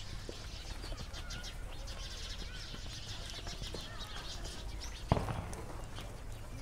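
Many small birds chirping from the trees, with dense short high chirps throughout, over a steady low rumble. One sharp knock comes about five seconds in.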